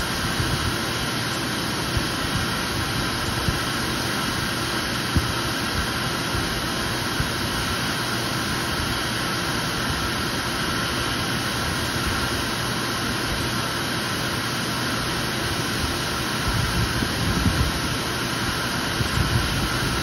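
Dryer vent cleaning vacuum running steadily, pulling air and lint out of the vent duct through a corrugated hose. A few short knocks, and a spell of irregular rattling near the end.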